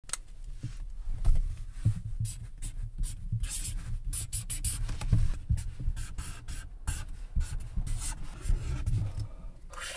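Felt-tip marker writing on a sheet of paper close to the microphone: quick, irregular squeaky strokes as letters are drawn. Low dull bumps from the paper and hands being handled come through alongside.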